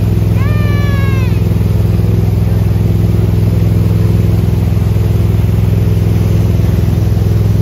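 Tow boat's engine running steadily under way, a loud low drone over the rush of water and wind. A short high-pitched call sounds about half a second in, falling at its end.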